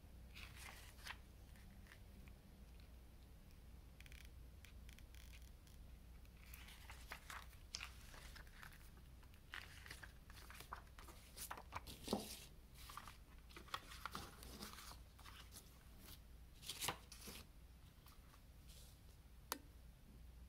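Faint rustling of a CD booklet's paper pages being handled and turned, with brief crinkles scattered through and a few sharper clicks, the loudest about twelve and seventeen seconds in.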